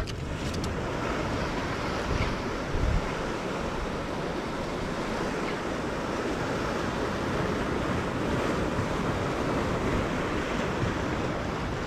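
Sea waves breaking and washing over shoreline rocks: a steady rush of surf.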